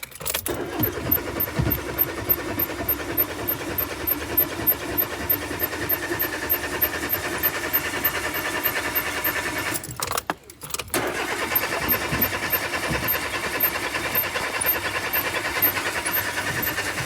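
Car engine cranking on the starter without catching, in two long attempts with a pause of about a second between them: a car that won't start.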